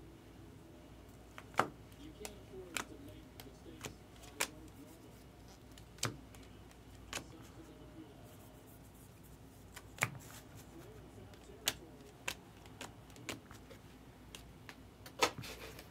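Baseball trading cards being flipped through by hand, each card slid off a stack with a short, sharp flick, at an uneven pace of roughly one a second, with a louder flurry of card handling near the end.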